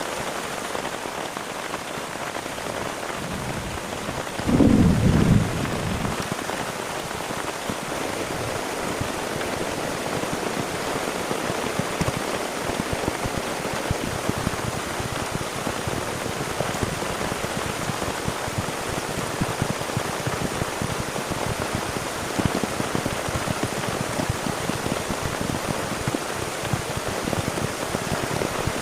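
Heavy rain falling steadily, a dense patter of drops striking a surface. About five seconds in comes a short, low rumble of thunder.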